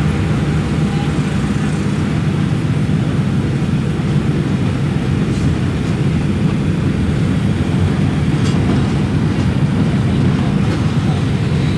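Mercedes-Benz OF-1721 Euro V bus engine running steadily at an even pitch.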